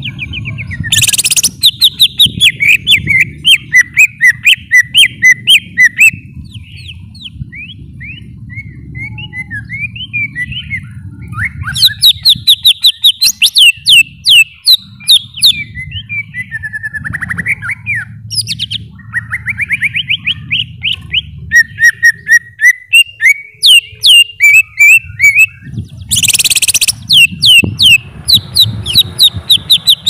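Cucak ijo, a green leafbird, singing: loud runs of rapid, sharp chirps and sweeping whistled notes, coming in bursts several seconds long with quieter scattered notes between. A low steady hum runs underneath, and brief harsh noise bursts come about a second in and again near the end.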